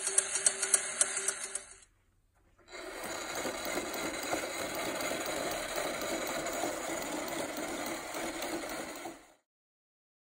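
Clockwork mechanism of a c.1880 Roullet and Decamps drumming bear automaton running: rapid, regular clicking of the works for the first two seconds, then, after a short break, a steady mechanical whirring that stops suddenly near the end.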